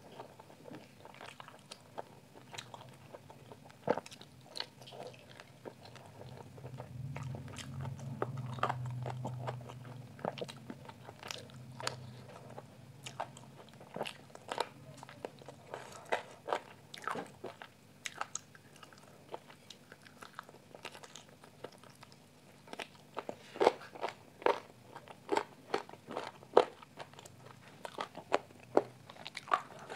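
Close-miked eating of rice and green chicken curry by hand: wet mouth smacks, chewing and small crunches, coming thick and loudest in the last few seconds. A low hum sounds for a few seconds in the first half.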